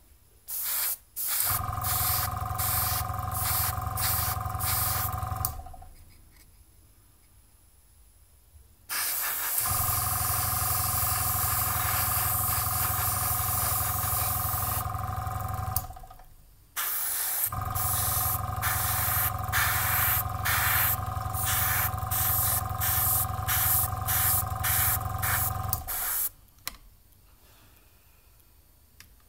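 Airbrush spraying clear varnish in quick repeated pulses of hissing air, with its small compressor running under it. It comes in three spells of several seconds each, with short pauses between.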